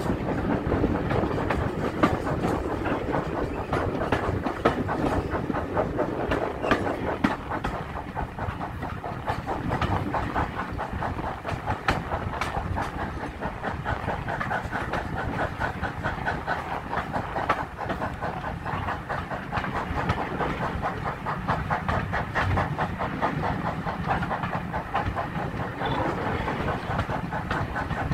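Passenger train hauled by a B1 steam locomotive, heard from an open carriage window while running: a steady rumble and clickety-clack of the coach wheels on the rails, with a fast, even beat throughout.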